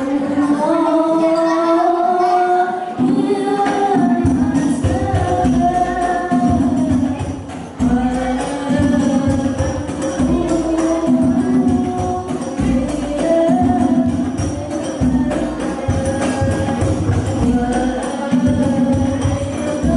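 Voices singing sholawat in unison over a sound system, joined about three seconds in by hadrah frame drums (rebana) with deep bass strokes in a steady rhythm.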